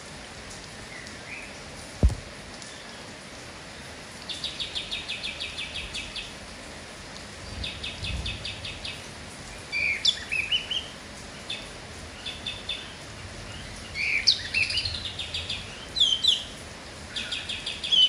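Kapas tembak bulbul singing: short rapid trills and bubbly whistled phrases, repeated several times, over a steady hiss of rain. A single sharp knock about two seconds in.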